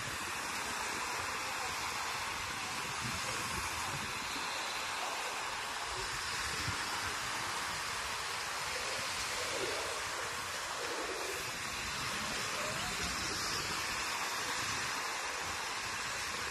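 Small waves washing onto a flat shallow beach: a steady hiss of surf.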